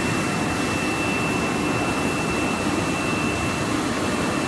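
RTP pipe production line machinery running: a steady mechanical noise with a constant high whine.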